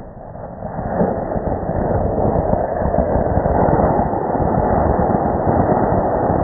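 Anar (flowerpot) Diwali fountain firework burning and spraying sparks. Its noise builds over about the first second to a steady, loud hiss.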